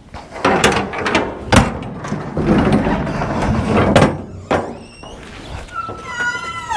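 Steel shipping container doors and their locking-bar latches being worked by hand: metal clanks and knocks with scraping between them. Near the end a wavering high squeal starts.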